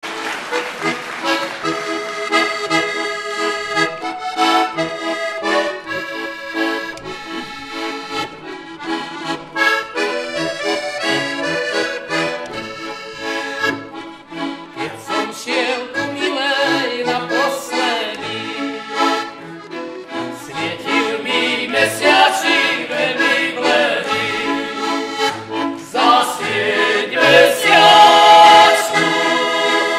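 Traditional Slovak folk music led by a diatonic button accordion (heligónka), played with fiddles and a cello at a steady dance rhythm. A man's singing voice comes in near the end and the music gets louder.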